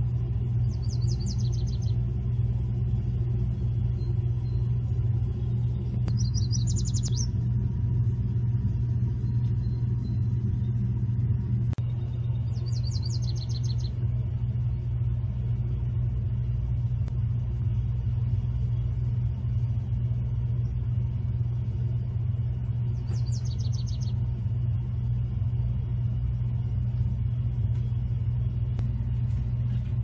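A songbird sings four short, high-pitched phrases of about a second each, several seconds apart, over a steady low rumble.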